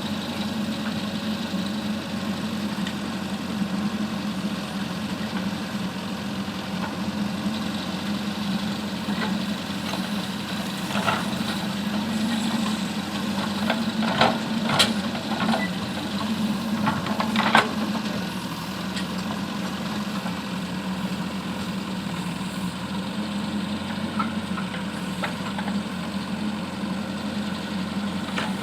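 JCB 3DX backhoe loader's diesel engine running steadily, with a few sharp knocks about halfway through.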